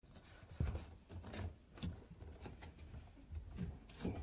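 Scattered faint knocks and clicks of hands handling the front panel of a Samsung washing machine as it is taken apart.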